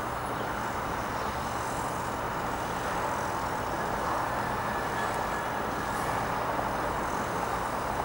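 Steady, unbroken din of city traffic: a wash of road noise with no single vehicle standing out.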